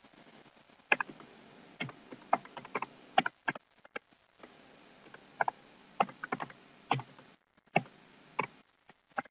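Typing on a computer keyboard: a string of separate keystroke clicks at an irregular pace, a few a second, with short pauses between them.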